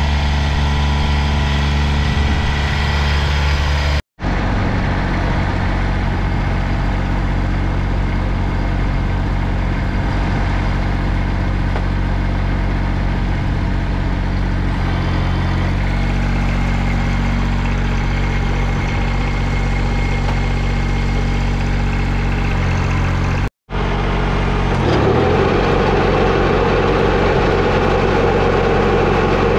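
Kubota BX2200 compact tractor's three-cylinder diesel engine running steadily. The sound drops out completely for an instant twice, and in the last few seconds it is slightly louder and fuller.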